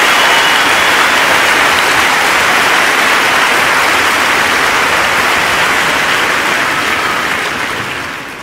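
Large audience applauding: dense, continuous clapping that fades out near the end.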